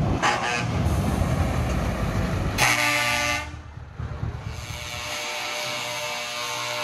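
Scania V8 truck engine running as the truck pulls away, then a truck air horn sounds: a short blast about two and a half seconds in, and a longer steady blast from about four seconds in.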